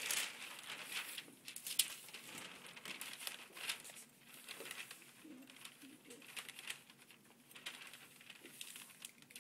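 Paper sleeve pattern rustling and crinkling as it is flipped over, folded and smoothed flat on a table: a run of short crinkles, loudest at the start and again just under two seconds in.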